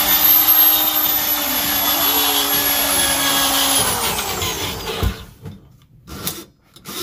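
DeWalt drill spinning a drum drain auger to clear a clogged sink drain. It runs at a steady whine for about four seconds, then winds down and stops about five seconds in. A few short knocks follow.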